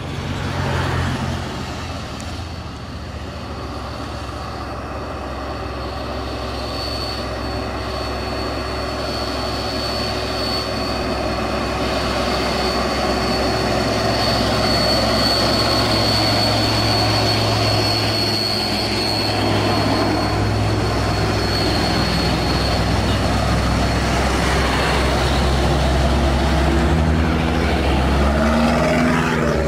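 Diesel engines of heavily loaded trucks pulling uphill under load, a steady engine drone that grows louder as a green Hino truck climbs up and passes close by. A thin high whine runs through the middle.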